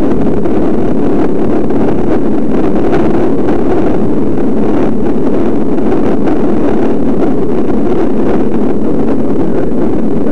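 Loud, steady wind rush on the microphone of a camera riding on a moving road bicycle.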